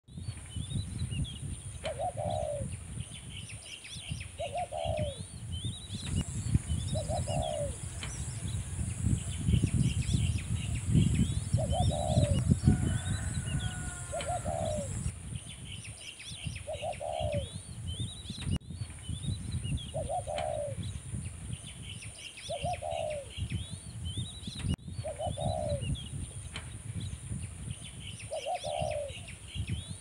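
Birds chirping and calling, with many quick high chirps and a lower short call repeated about every two and a half seconds, over a steady high-pitched hiss and a low rumble.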